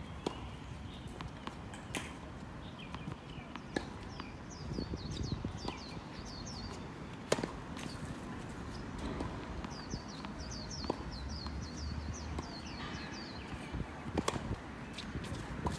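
Racket-sport doubles play on an indoor court: sharp racket hits every second or two, with runs of quick shoe squeaks on the court floor in between.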